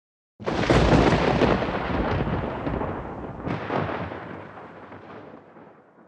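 A thunder-like boom used as an intro sound effect. It starts suddenly about half a second in, with a second sharp crack about three seconds later, then a long rumble dying away.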